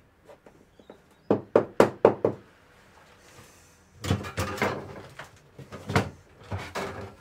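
Plywood blocks knocked and clattered while being pressed into cut-outs in a fibreglass cabin wall: a quick run of four or five sharp wooden knocks about a second in, then rougher clattering and scraping near the end.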